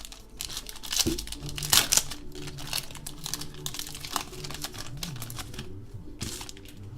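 Crinkling and tearing of a trading-card pack wrapper being opened, with quick rustling as the cards inside are handled.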